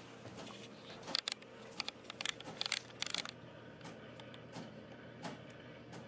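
Scattered faint clicks and rustles at an irregular pace, most of them bunched in the first half, over a low steady hiss.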